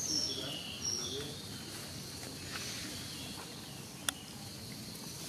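A few short, high chirping animal calls and some low cooing calls in about the first second, over steady outdoor background noise, with a single sharp click about four seconds in.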